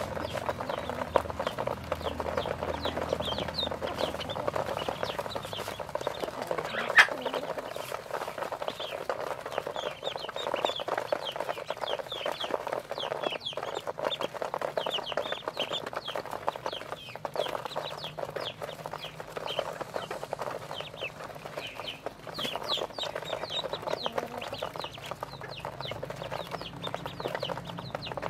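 A crowd of ducklings peeping all at once, many short high chirps overlapping, over the clicking and tapping of their bills pecking at feed in a tray. One sharp click stands out about seven seconds in.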